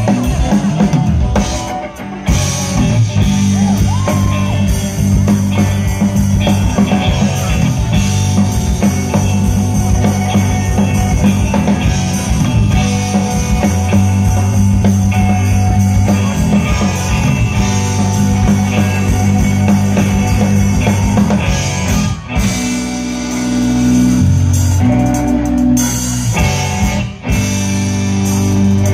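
A live rock band plays with electric guitars, bass guitar and drum kit. About two-thirds of the way in, the drums ease off under long held low bass notes, and the full band comes back in near the end.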